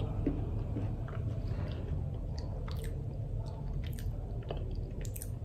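A person chewing a bite of white chocolate, with scattered small mouth clicks over a low steady hum.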